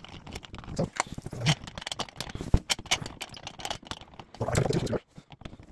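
Small clicks, taps and rattles of metal trim-plate screws and the trim plate being handled and fitted against a shower valve, with a louder knock about two and a half seconds in.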